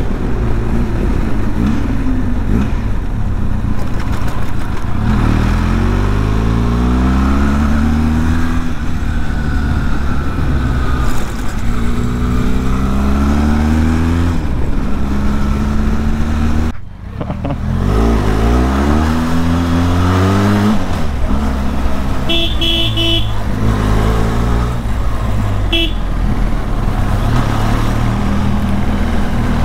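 Benelli TRK 502X's parallel-twin engine heard from the saddle, rising in pitch again and again as it pulls up through the gears and dropping at each shift, over wind rush. About two-thirds of the way through, a vehicle horn beeps twice.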